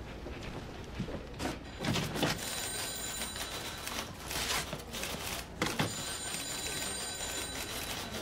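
Office telephone bell ringing twice, each ring about a second or more long, with a few knocks and steps of office bustle around it.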